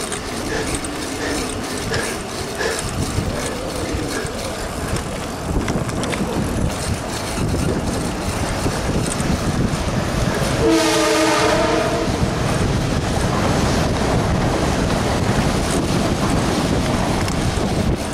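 Wind rushing over the microphone and tyre noise of a bicycle rolling on a paved road, with light regular ticks during the first few seconds. About ten seconds in, a horn sounds a chord of several tones for about a second and a half.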